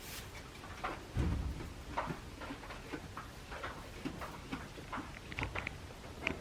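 Goat pen sounds as young kid goats rest: scattered small clicks and rustles, with a soft low thump about a second in and a few brief high chirps near the end.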